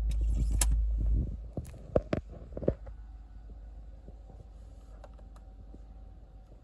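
A low rumble for the first second, then four sharp clicks in quick succession about two seconds in, over the faint steady hum of a 2013 Chevy Tahoe idling.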